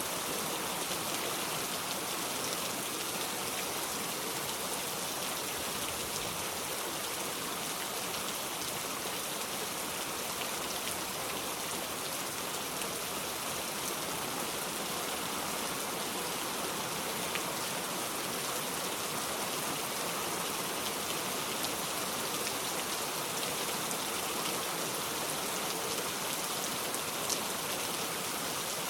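Steady rain falling: an even, dense hiss of drops with a few single louder drops standing out.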